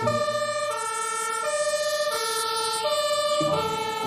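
Two-tone fire engine siren sound, alternating between a low and a high note about every three quarters of a second.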